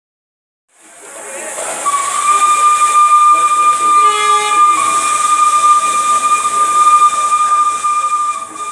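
Steam locomotive whistle blowing one long steady note over a rush of escaping steam. The steam hiss builds up about a second in, and the whistle comes in about two seconds in and holds.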